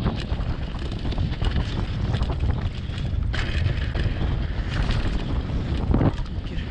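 Wind buffeting a GoPro's microphone during a fast mountain-bike descent, with the tyres crunching over sand and loose stones and the bike rattling. A brief louder hiss comes about three seconds in.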